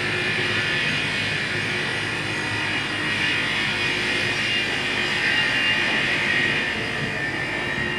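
A steady rushing noise, even in level throughout, with no clear beat or pitch.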